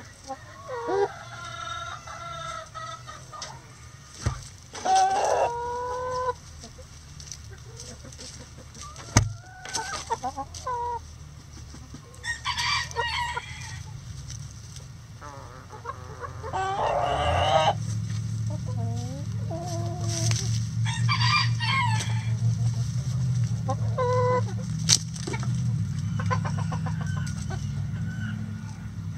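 Backyard chickens calling: roosters crowing several times amid hens clucking. About two-thirds of the way through, a low steady hum joins and stays under the calls.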